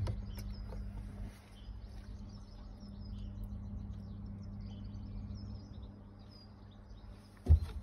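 Small birds chirping over the steady low hum of an idling car engine, heard from inside the car, with one short loud thump near the end.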